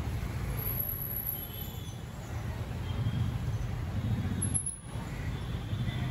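Steady low rumble of street traffic, dipping briefly about three-quarters of the way through.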